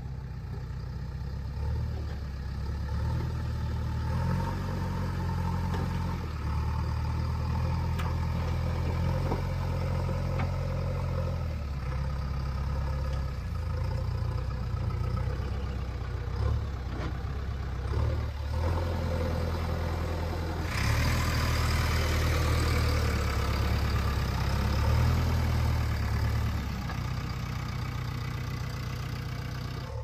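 JCB 3DX backhoe loader's diesel engine running under load as the front bucket pushes soil, its revs rising and falling every few seconds. A louder hiss joins over the engine about two-thirds of the way through.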